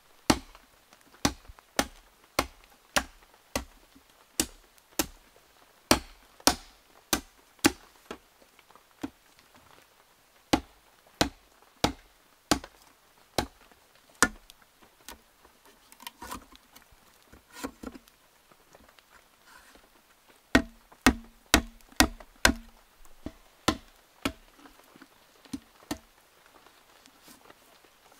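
Machete chopping into green bamboo: sharp strikes roughly one every half second, in two runs with a short stretch of softer, irregular knocks between them.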